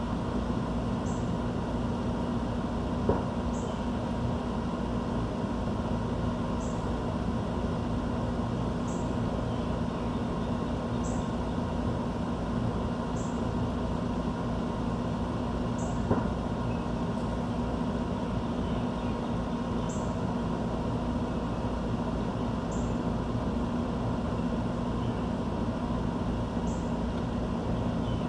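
A steady low mechanical hum of outdoor background noise runs throughout. Over it a bird gives a faint, high chip note about every two seconds, and there are two soft clicks.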